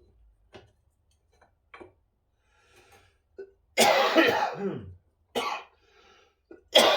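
A man coughing from a heavy cold: a long, loud coughing fit about four seconds in, a shorter cough after it, and another loud cough near the end.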